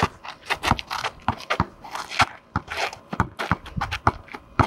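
Basketball being dribbled on an asphalt court, a thud about every half second, with sneakers scuffing and scraping on the asphalt between the bounces.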